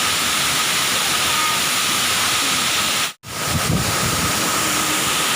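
Water pouring down a waterfall: a steady, loud rush. It cuts out for an instant about three seconds in, then comes straight back.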